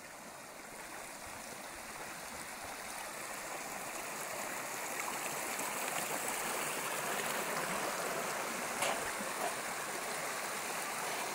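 Small alpine stream rushing over stones, the running water growing louder over the first several seconds as it is approached. A couple of brief clicks come late on.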